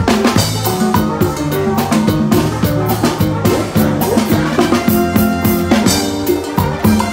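Live band music led by a timbales set with cymbals and a kick drum, with rapid drum strikes and cymbal crashes over bass and other instruments.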